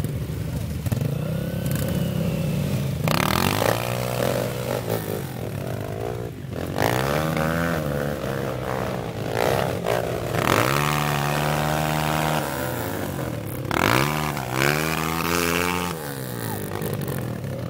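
Dirt bike engines revving hard in several long bursts, the pitch rising and falling, as the bikes struggle stuck in deep mud.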